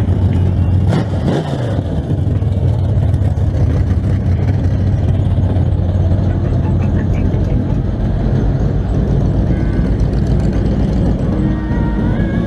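Off-road vehicle engines running steadily, with one engine note dropping in pitch about a second in.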